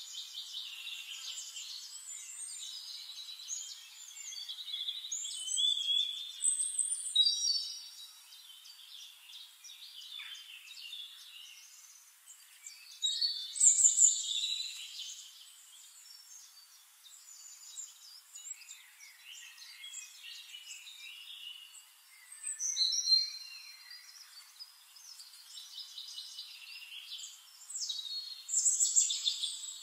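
Several songbirds singing in woodland: chirps, trills and whistled phrases that come in bursts every several seconds, with quieter twittering between.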